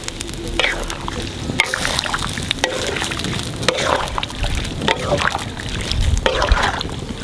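Wooden spatula stirring whole shrimp in simmering liquid in a wok, sloshing and scraping in strokes about once a second over the steady bubbling of the pot.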